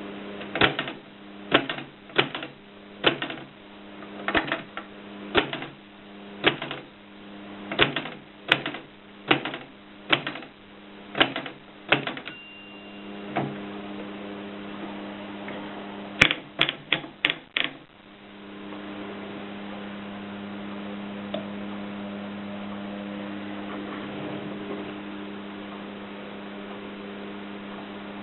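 AEG Mignon 4 index typewriter printing, one sharp clack at a time in a slow, even rhythm, with a short bell-like ring about twelve seconds in. A quick run of five clicks follows a few seconds later, then the typing stops and a steady electrical hum is left for the last ten seconds.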